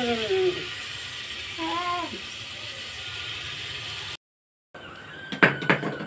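Masala paste sizzling in an aluminium pressure cooker, a steady hiss with two brief sliding voice-like sounds over it. After a short break, a child's marbles click and knock sharply several times as they are handled and dropped into a small container.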